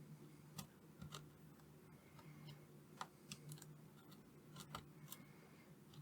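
Near silence: a faint steady low hum with scattered faint, irregular small clicks, about a dozen in all.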